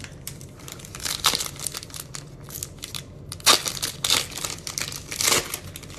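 Foil wrapper of a 2021 Bowman Platinum baseball card pack crinkling and tearing as it is ripped open by hand: a run of sharp crackles with several louder rips.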